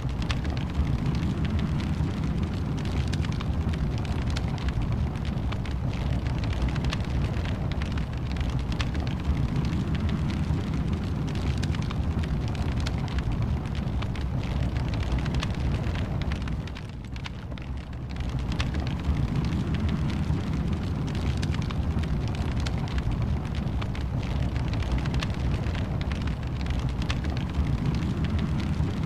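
Fireplace wood fire burning: a steady low rumble with constant small crackles and pops. It drops away briefly about two-thirds of the way through.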